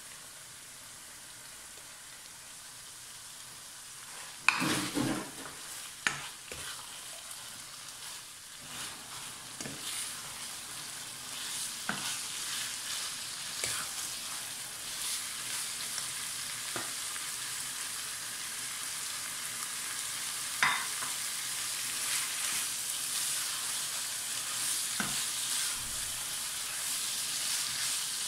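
Minced meat, onions and tomatoes frying in a wok: a steady sizzle that grows louder, with a loud clatter about four and a half seconds in and scattered scrapes and taps from a spatula stirring the mixture against the pan.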